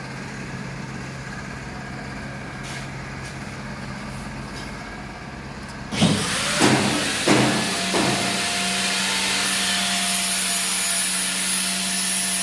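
Electric arc welding on a stainless-steel gate frame. Behind a steady machine hum, the arc is struck about halfway in with several sharp crackling bursts, then burns with a steady harsh hiss.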